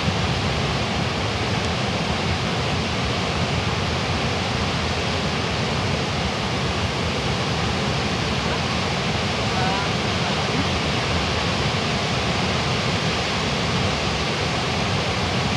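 Large waterfall (Goðafoss) rushing steadily close by: a dense, even noise of falling water that does not change.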